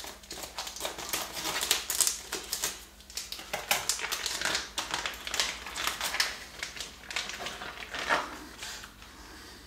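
Plastic bags crinkling and rustling as pieces of pheasant meat are unwrapped by hand, in a run of irregular crackles and clicks that thins out near the end.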